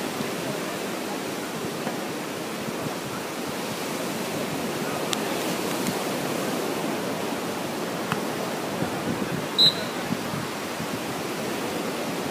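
Steady rushing of surf and wind on a beach. A few faint ticks, and about ten seconds in a brief, loud, high-pitched tone like a short whistle.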